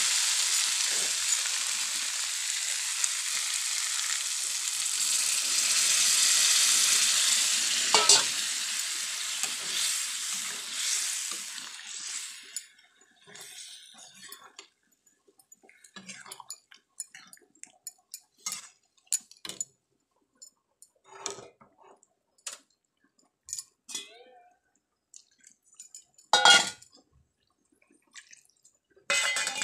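Prawns frying in hot oil and masala in a steel kadai, with a steady sizzle as a steel spatula stirs them; the oil has separated, a sign the prawns are fried through. About twelve seconds in, the sizzle dies away, leaving scattered scrapes and clinks of the spatula against the pan. Near the end come two short loud splashes as hot water is poured in.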